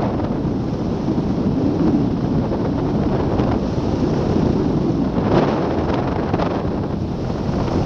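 Rushing airflow from flight on a hang glider buffeting the microphone of a glider-mounted camera: a steady, loud wind rush with a few sharper gusts past the middle.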